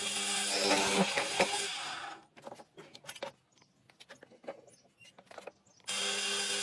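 A steady machine hum, likely a woodworking power tool, stops abruptly about two seconds in. A few seconds of light clicks and taps follow, and then the hum starts again abruptly near the end.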